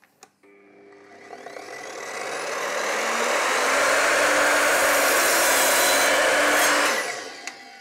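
Evolution R255SMS multi-material sliding mitre saw: the motor comes up slowly on its soft start, rising in pitch and loudness over about three seconds, the blade cuts through plywood, and the motor is released about seven seconds in and winds down.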